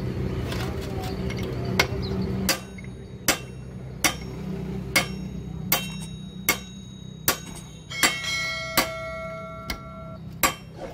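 A hammer striking the steel parts of a Hino truck gearbox, about a dozen steady blows a little under a second apart, several leaving a clear metallic ring. A steady low hum drops away about two and a half seconds in.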